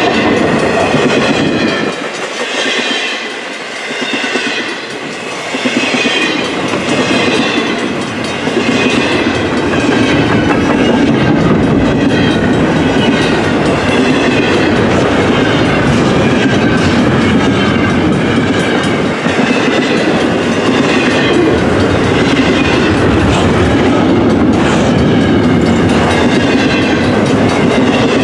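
Cars of a long double-stack intermodal freight train rolling past on the rails, a loud, steady running noise with a short dip in the low rumble a few seconds in.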